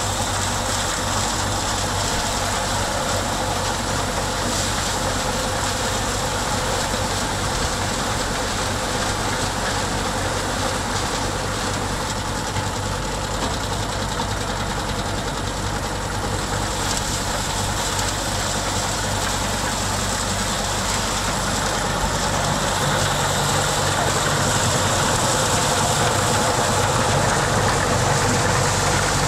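An engine running steadily with a low, even hum, getting slightly louder about three-quarters of the way through.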